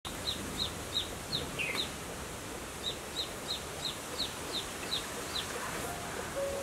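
A bird chirping over and over in short, high, falling notes, about three a second, in two runs with a short pause between, over a steady outdoor background hiss. Music comes in faintly near the end.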